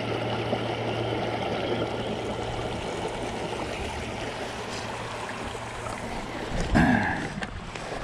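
Creek water running: a steady, even rush. A short vocal sound comes about seven seconds in.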